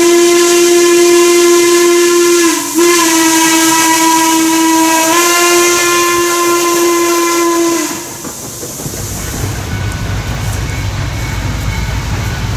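Steam whistle of Western Maryland Scenic Railroad No. 1309, a 2-6-6-2 Mallet steam locomotive, sounding long steady blasts with a brief break about two and a half seconds in, stopping about eight seconds in. After that a lower, steady rumble of the train running past remains.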